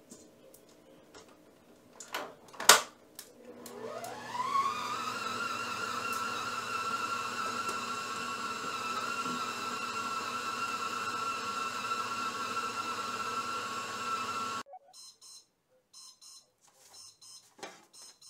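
Electric stand mixer kneading bread dough: its motor whine rises in pitch as it starts, then runs steady for about ten seconds before cutting off suddenly. A few sharp knocks come just before it starts, the loudest right before the motor spins up.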